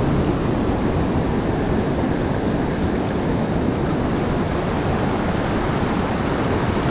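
Ocean surf washing over and around flat rock ledges: a steady rush of breaking waves and foam.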